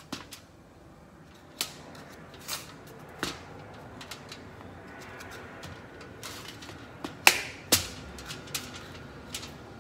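Kitchen knife scoring the flesh of a raw butternut squash half: irregular sharp clicks and snaps as the blade cuts in, the loudest two close together about seven seconds in.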